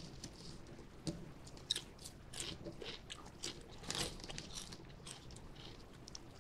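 A mouth chewing a potato chip, with irregular crisp crunches; the plainest come about a second in and again around four seconds in.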